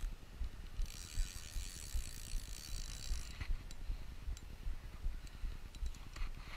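Shimano spinning reel being cranked to retrieve line, its gears whirring for about two seconds starting about a second in, with scattered small clicks. Wind buffets the microphone throughout.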